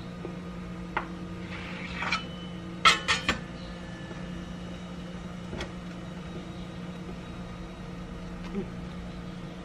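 Panettone dough being shaped into balls by hand on a kitchen work surface: a few scattered light taps and knocks, with a short clatter of sharp clicks about three seconds in, over a steady low hum.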